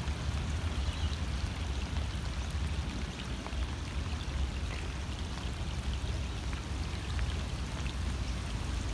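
Steady rain falling, with faint scattered drop ticks and a low rumble underneath.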